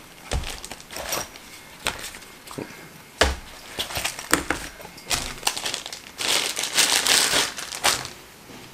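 Plastic packaging bag crinkling as a camera lens is unwrapped, with clicks and handling knocks of its box, including one sharp knock about three seconds in and a longer run of crinkling from about six to eight seconds in.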